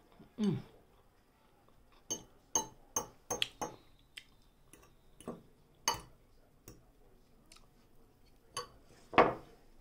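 Metal fork clinking and scraping against a dish while eating, about a dozen light clicks spaced irregularly, with a louder knock near the end.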